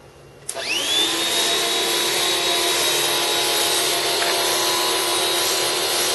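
Electric pressure washer's motor and pump starting about half a second in with a quick rising whine, then running steadily with a high whine over a loud hiss.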